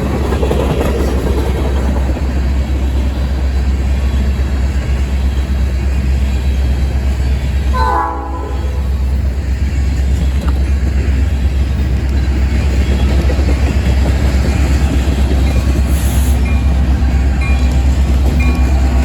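A freight train rolling by with a heavy, steady rumble. About eight seconds in a locomotive horn gives a short sound.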